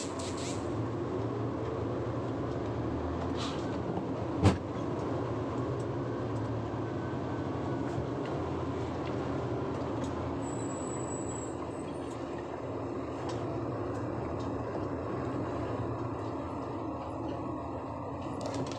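Concrete mixer truck running as it drives slowly along a wet road, a steady engine and road noise heard from the cab. One sharp click comes about four and a half seconds in.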